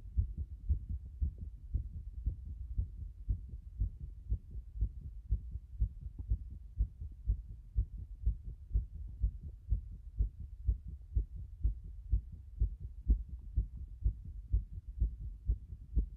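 A fast heartbeat: low thumps in quick, even succession.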